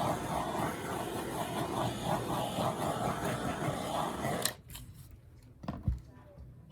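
Handheld torch flame hissing steadily, then shut off abruptly with a click about four and a half seconds in. A low thump follows about a second later.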